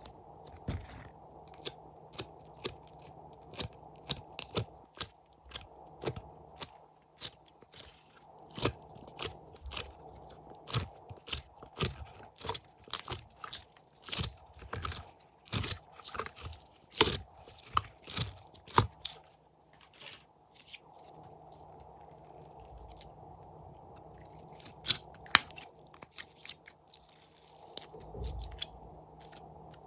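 Slime being squished and kneaded by hand, giving an irregular run of sharp crackling clicks and pops that thins out about two-thirds of the way through, with a few more clicks near the end.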